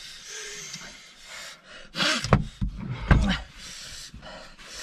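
A man breathing hard and hissing air in and out through his mouth against the burn of extremely hot chili chicken wings, with short groans and a couple of loud thuds around the middle.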